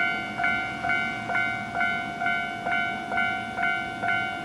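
Railway level crossing warning bell ringing in a steady, even beat of about two strikes a second, each strike fading before the next, signalling that a train is approaching.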